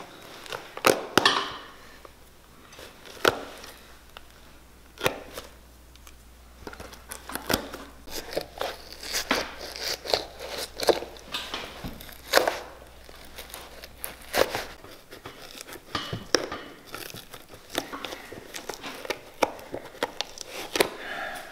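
Old crepe rubber sole residue on a Clarks Wallabee being torn off with needle-nose pliers and scraped off the leather with a knife: irregular sharp snaps and short tearing and scraping noises. The rubber has half-melted and is glued to the sole, so it comes away in small bits.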